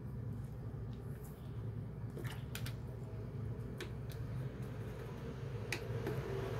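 Steady low room hum with a handful of short, sharp clicks and taps, as of small objects being handled on a desk, several in quick succession about two seconds in and a couple more later.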